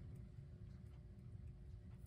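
Near silence: low room tone with a faint steady hum.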